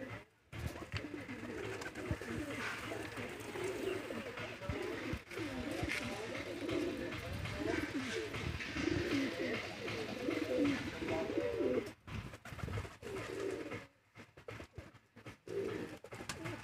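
A flock of domestic pigeons cooing, many low calls overlapping almost without a break, with short gaps near the end.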